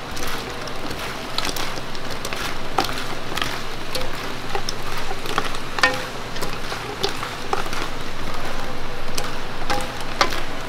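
Chicken pieces deep-frying in hot oil: a steady sizzle broken by irregular crackles and pops.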